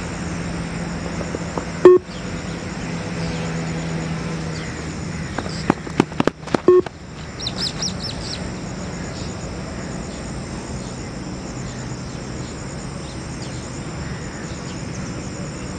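Two short electronic beeps from the Yo-Yo intermittent recovery test audio, about five seconds apart: the timing signals for the turn and the finish of a 20 m out-and-back shuttle, the second starting the 10-second recovery. Between them are a few sharp clicks, then a brief burst of high chirping, over steady outdoor background noise with a low hum.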